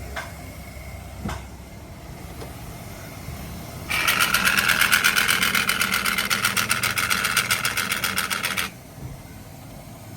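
Power tool running in a fast, even rattle of about ten beats a second, starting about four seconds in, lasting about four and a half seconds and cutting off suddenly.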